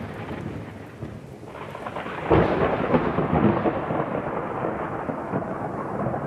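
Thunder: a rumble dies away, then a sharp thunderclap about two seconds in rolls on as a long rumble.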